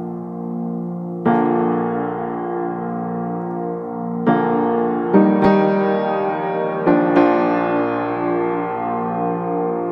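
Background piano music: slow, sustained chords. A new chord is struck a little over a second in, and several more come between about four and seven seconds in.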